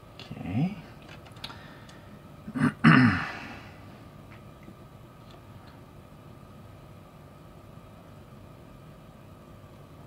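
Brief wordless vocal sounds from a man, a short one about half a second in and a louder, longer one near three seconds, each sliding in pitch. Between them come a couple of faint clicks, over a steady low room hum.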